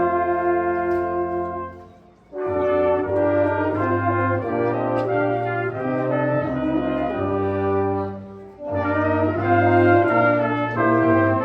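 Brass ensemble playing sustained chords, trumpets over trombones and a low bass line, with short breaks between phrases about two seconds in and again around eight seconds.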